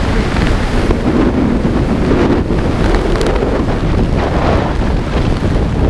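Steady wind rushing over the camera's microphone as a parachutist descends under an open canopy.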